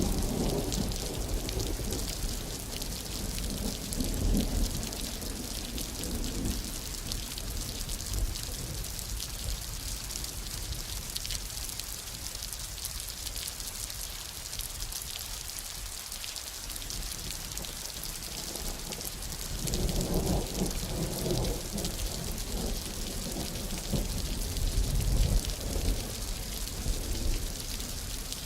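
Steady rain falling, with thunder rumbling low in the first several seconds and building again from about twenty seconds in.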